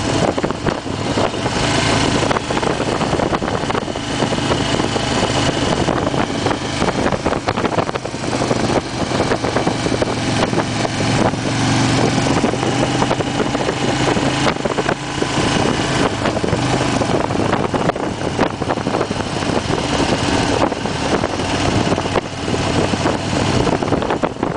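2008 Harley-Davidson Fat Bob's V-twin engine running steadily on the move, mixed with heavy wind rush over the windshield and microphone. The engine hum swells slightly about halfway through.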